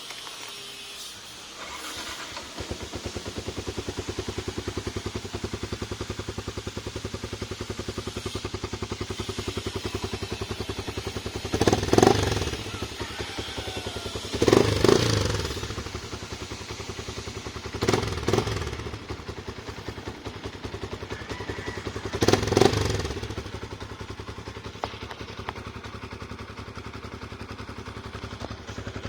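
Yamaha Sniper 150's single-cylinder four-stroke engine idling with a steady rapid pulse, starting up about two seconds in. It is blipped four times, each rev rising sharply and dropping back to idle.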